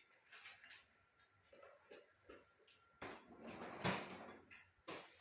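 Kitchen utensils clinking and scraping against a bowl, faint at first, then louder from about three seconds in with a couple of sharp knocks.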